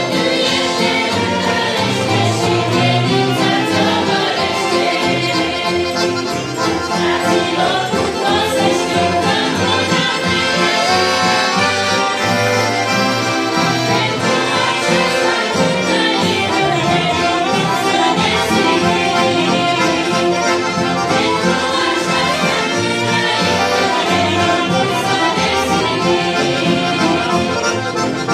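A youth choir singing a hymn, accompanied by a piano accordion.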